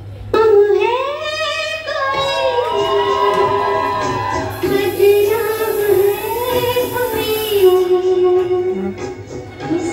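A song with a woman's high voice singing long, wavering held notes.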